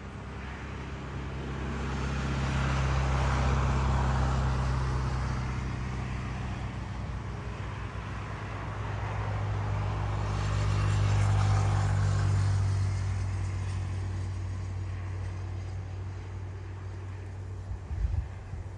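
Airbus A320neo jet engines on landing, a low steady drone with a rushing roar that swells twice, about three seconds in and again about eleven seconds in, before fading.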